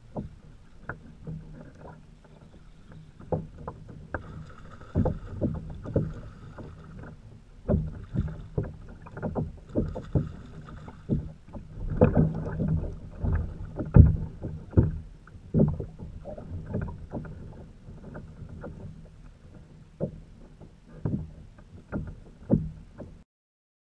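Irregular knocks and thumps on a plastic fishing kayak's hull as the angler standing on it shifts his feet and weight while fighting and landing a fish. The sound cuts off suddenly near the end.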